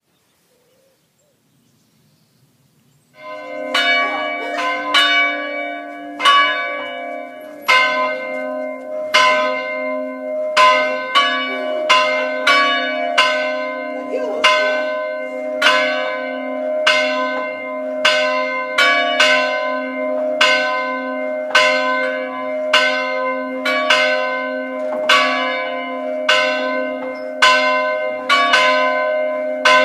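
Church tower bells rung by ringers pulling their ropes, heard from the ringing chamber below: after near silence, strikes start about three seconds in and follow one another steadily, a little faster than one a second, over a lingering hum.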